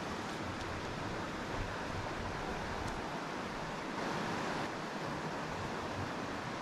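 Mountain creek water running over rocks, a steady rushing.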